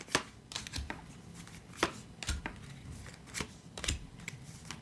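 Tarot cards being shuffled and drawn from the deck: irregular soft clicks and snaps, with a few dull taps.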